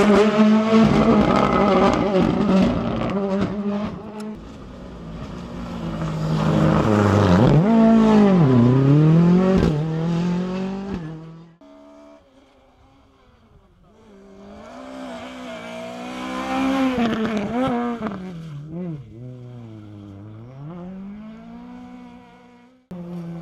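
Rally car engines revving hard at full throttle, the pitch climbing through each gear and dropping on lift-offs and downshifts. A first car passes loudly. After a sudden cut about halfway, a second car is heard approaching and revving through its gears.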